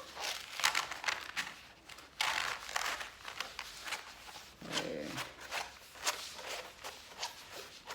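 Rustling and crinkling of a diamond painting canvas and its plastic cover film being handled and rolled up, a run of short scrapes and crackles. A brief murmured voice comes about five seconds in.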